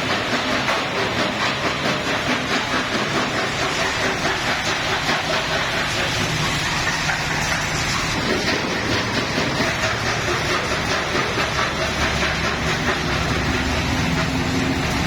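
Stone crusher machine running, a loud, dense, continuous clatter with a regular pulse of about three beats a second that grows less even in the second half.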